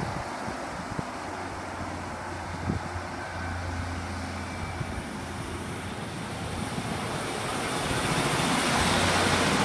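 Class 156 diesel multiple unit pulling away from a station platform and passing close by. A steady low engine hum runs under the noise of the train, which gets louder from about six seconds in as the cars go past.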